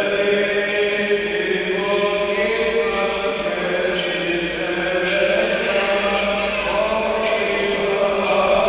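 Slow Orthodox church chant: voices singing long held notes that move to a new pitch every second or two.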